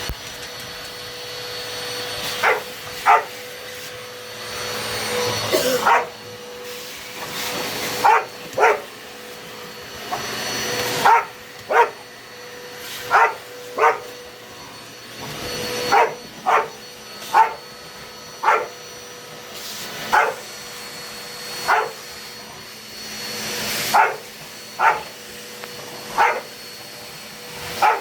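Dog barking at a running vacuum cleaner: short sharp barks, often in pairs, one every second or two, over the vacuum motor's steady whine, which swells louder now and then.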